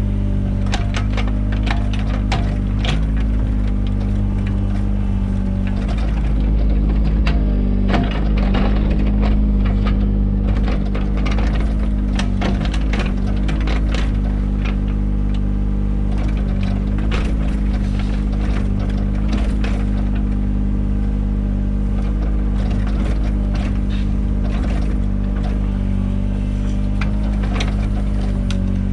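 Mini excavator's diesel engine running steadily under load, with frequent sharp cracks and scrapes as the bucket digs through soil. The engine swells louder for a few seconds about a quarter of the way in.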